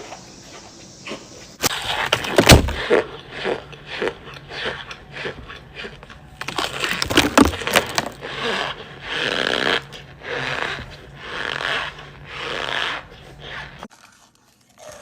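Compressed cornstarch blocks being bitten and chewed. Sharp cracks about 2.5 s and 7 s in are followed by a run of crunchy chewing bursts.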